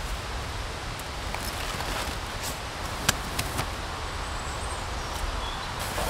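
Steady rushing outdoor woodland background with wind rumbling on the microphone, broken by a few sharp clicks and taps, the loudest about three seconds in.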